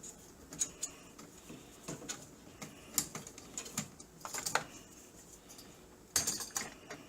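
Irregular small clicks and taps as a CPU cooler's retention arm is worked off its mounting, with a quicker cluster of clicks about six seconds in.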